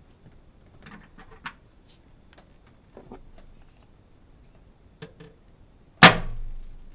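Small clicks and taps of tools and fittings being handled while plugs and push-fittings are tightened into a differential breather block, then one loud knock with a short ringing tail about six seconds in.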